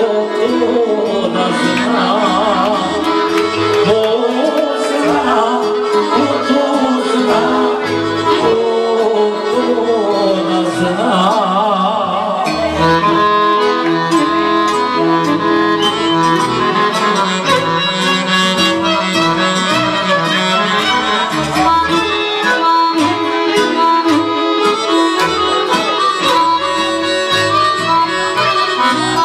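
Live Serbian folk music on accordion and violin. A wavering melody leads for about the first twelve seconds, then gives way to steadier, fuller held notes.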